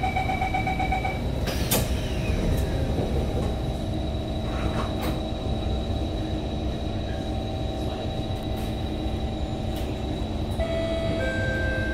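Train door-closing chime beeping rapidly for about a second, then the doors shut with a sharp knock. Under it and after it runs the steady rumble of the MRT car, with a steady whine coming in near the end.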